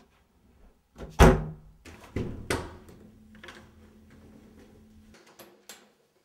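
A loud thud about a second in, followed by two more knocks, with a few lighter clicks near the end.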